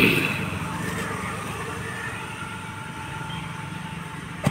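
Motor vehicle engine running steadily in passing road traffic, loudest at the start and then slowly fading. A single sharp click comes near the end.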